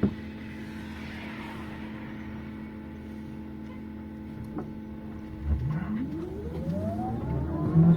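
City bus engine running with a steady hum, heard inside the cabin. About five and a half seconds in, its pitch rises steadily as the bus accelerates away.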